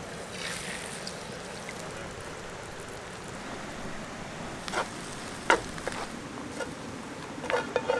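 Steady rush of flowing river water, with a few sharp clicks and knocks about five seconds in and again near the end.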